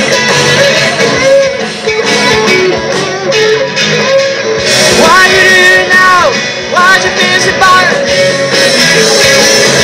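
Live rock band playing an instrumental passage on electric guitars, bass and drums, loud and continuous. Around the middle, two long held notes bend up and back down over the band.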